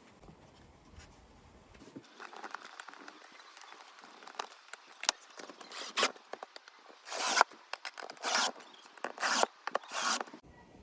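A run of short rasping scrapes, one after another. They grow louder and longer from about the middle onward, then stop abruptly.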